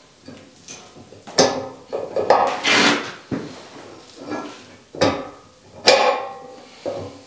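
Steel clevis pin and hydraulic cylinder clevis clanking and scraping as they are worked into line by hand: about six irregular metal knocks and short scrapes, the loudest near the end with a brief ring.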